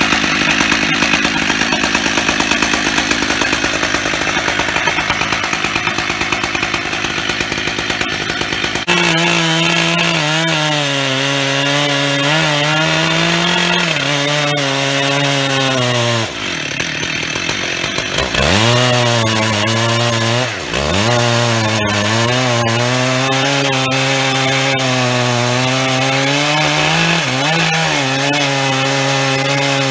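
Stihl MS 880 chainsaw's big two-stroke engine running at full throttle on a chainsaw mill, its ripping chain cutting lengthwise through an oak log. The first third is a harsher rasp without a clear note, then a steady high engine note. Around the middle the note drops sharply in pitch twice, once for about two seconds and once briefly, and climbs back each time.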